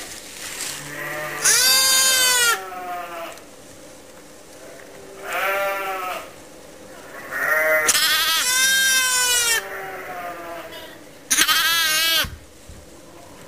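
Lambs bleating: about five high-pitched calls a few seconds apart, the longest one drawn out for over a second.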